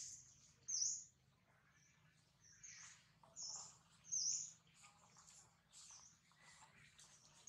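Faint short, high-pitched bird chirps repeating irregularly about once a second.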